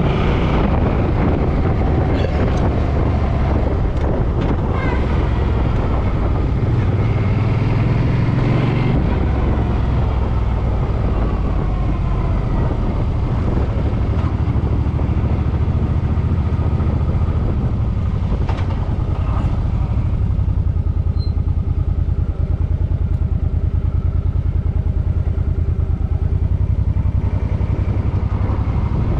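Suzuki M50's 805 cc V-twin engine running while the motorcycle is ridden, its pitch rising and falling with speed in the first half and then holding steadier.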